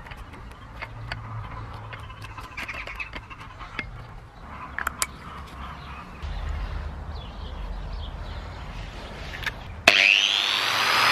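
Scattered clicks and rustling as a corded angle grinder is handled and its plug connected. About ten seconds in the grinder switches on with a sudden loud start, its motor whine rising in pitch as it spins up, with the disc set on the painted steel cabinet top.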